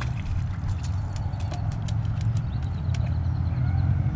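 Spinning reel clicking in quick irregular runs as a channel catfish is reeled in and lifted out of the water, over a steady low rumble.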